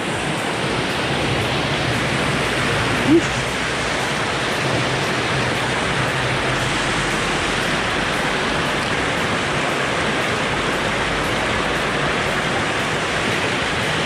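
Mountain stream water rushing steadily over a small weir and rocky cascades. One brief rising note sounds about three seconds in.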